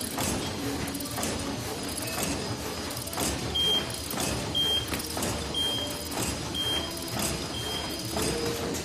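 BH-FQ six-line cold-cut T-shirt bag making machine running, with a steady mechanical clatter and regular clacks about once a second. A short high beep sounds five times, about a second apart, in the middle.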